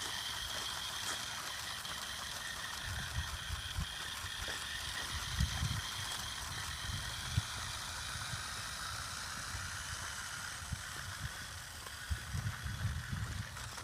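Remote-control toy car's small electric motor whining steadily as it drives, with some rattle, and occasional low thumps of wind or handling on the microphone.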